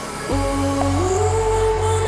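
Background music: a song with sustained bass notes and a held melody line that rises about a second in.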